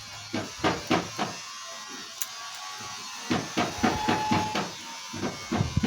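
Thin zinc sheet being rolled by hand into a door-hinge bushing: a run of light, irregular metallic taps and clicks, pausing for about two seconds in the middle before starting again.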